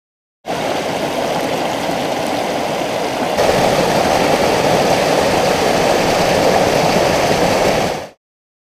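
Mountain stream water rushing steadily. It starts and stops abruptly and gets louder about three seconds in.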